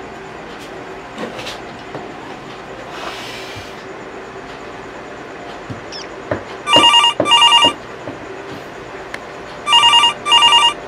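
Mobile phone ringing with a double-ring telephone tone: one double ring about seven seconds in and a second about three seconds later.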